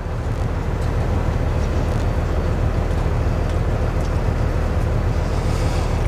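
Semi truck's diesel engine idling: a steady low rumble heard inside the cab.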